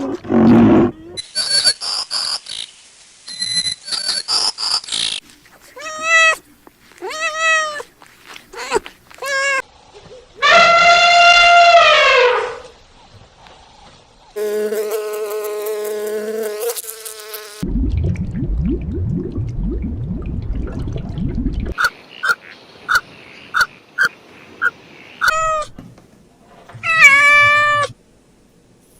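A string of different animal calls, one recording after another: short arching cries, a long drawn-out pitched call near the middle, a low rough stretch, and a run of short evenly spaced chirps.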